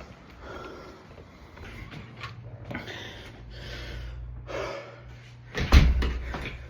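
A man breathing hard after a short run, with heavy breaths coming about once a second. Near the end comes a single louder bump with a rustle, and a low steady hum sits underneath.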